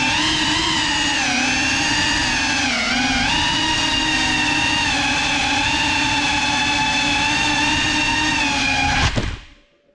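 GEPRC Cinelog 35 cinewhoop drone's brushless motors and propellers whining steadily, heard through its onboard GoPro. The pitch wavers slightly with throttle, and the motors cut out about nine seconds in.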